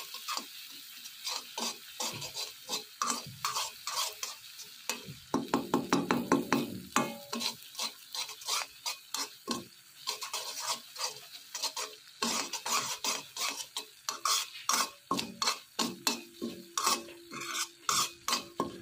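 Metal spoon scraping and clinking against a pan in quick, irregular strokes while stirring semolina being roasted in oil.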